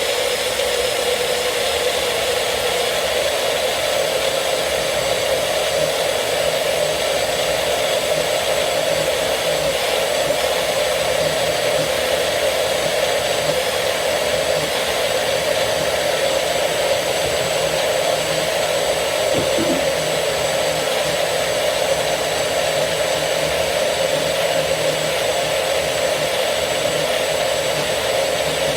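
Electric blender running steadily at speed, pureeing ginger with honey and apple cider into a fine liquid.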